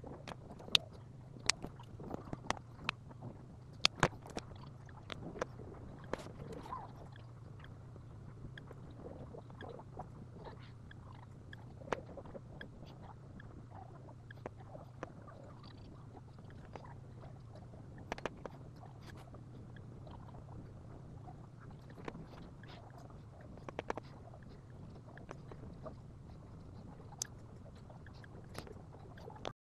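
A steady low hum under scattered sharp clicks and light taps, busiest in the first several seconds: a paintbrush, a plastic palette and a clear painting sheet being handled on a desk.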